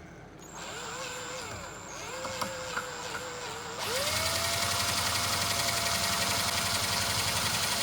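Electric drill running as it bores into metal, its motor pitch wavering under load. A little before halfway the motor speeds up to a higher, steady pitch and runs louder.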